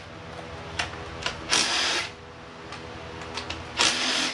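Cordless drill/driver run in two short bursts, about a second and a half in and again near the end, spinning out engine bolts, with a few light clicks in between. A steady low hum runs underneath.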